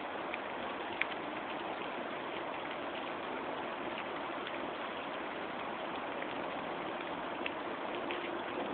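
Steady hiss of outdoor background noise, with a few faint ticks and one sharper click about a second in.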